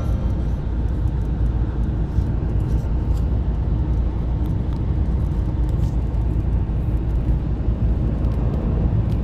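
Car driving at motorway speed, heard from inside the cabin: steady low tyre and engine noise.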